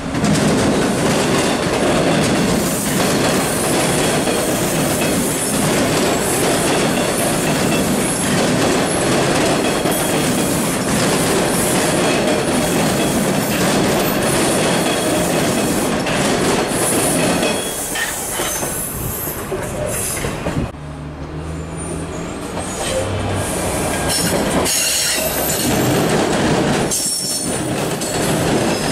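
TTC T-1 subway train passing close by, a steady loud rumble of steel wheels on the rails with clacking over the rail joints. Short high wheel squeals come through, mostly near the end.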